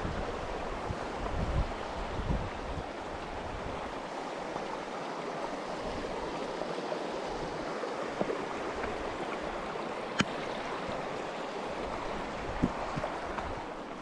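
Shallow mountain stream rippling over stones and pebbles: a steady, even rushing of water. A single sharp click comes about ten seconds in.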